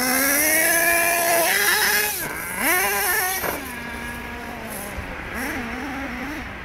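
Nitro-powered RC monster truck engine revving under throttle: its pitch climbs for the first second and a half, drops and picks up again twice, then settles lower and quieter with small throttle blips toward the end.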